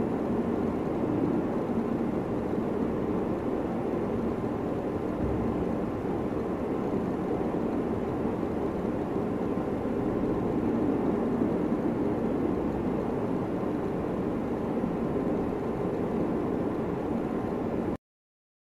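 Steady droning background noise with no clear rhythm or events, cutting off abruptly near the end.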